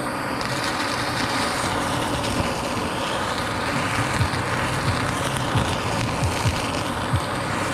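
Handheld butane kitchen torch burning with a steady, loud hiss as its blue flame sears a slice of pork.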